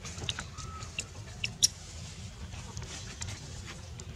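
Baby macaques squeaking in short, high-pitched squeals while wrestling, a few scattered through, the loudest about a second and a half in, over a steady low rumble.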